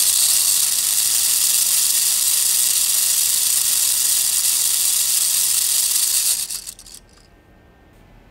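LEGO Technic gear train, stepped up from an electric motor, spinning its top disc at about 7,600 rpm with a loud, high, even whir of fast-meshing plastic gears. It cuts out about six and a half seconds in and spins down briefly.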